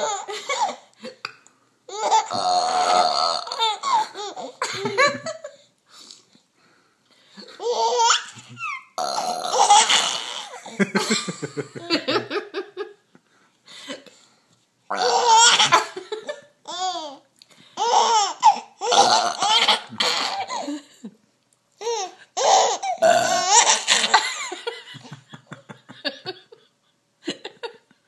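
A woman burping loudly and a baby laughing in response, over and over, in several bouts separated by short pauses.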